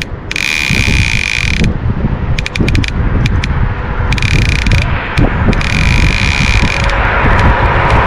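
Fishing reel buzzing as a hooked fish pulls line off against the drag: three runs of a steady high buzz, with a few single clicks between the first two, over a steady low rumble.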